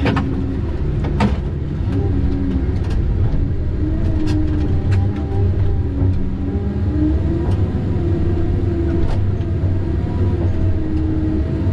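Tigercat 610E skidder's diesel engine running steadily, its pitch shifting slightly up and down, with scattered sharp clicks and knocks.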